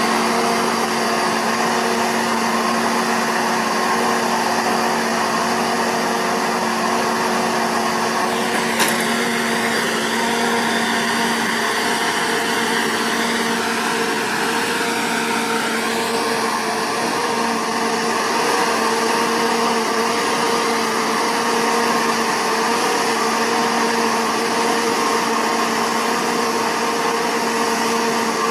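Self-propelled tobacco harvester running steadily as it cuts and lifts whole tobacco plants: a steady mechanical whir with constant humming tones, one brief click about nine seconds in, and a slight change in the hum's pitch around sixteen seconds in.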